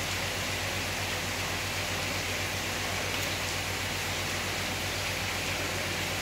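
Steady rushing hiss with a low hum underneath, unchanging throughout.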